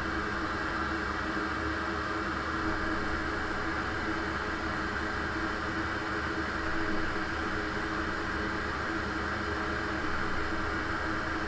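A small electric blower or fan on a repair bench running steadily: an even whooshing hiss with a low hum underneath.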